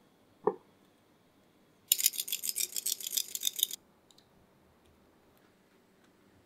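A short clink about half a second in, then nearly two seconds of fast, bright rattling of kitchen utensils that stops abruptly.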